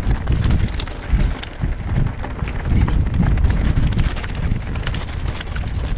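Mountain bike descending a loose stony trail: tyres crunching and rattling over the rocks in a constant clatter of small knocks, with wind buffeting the microphone.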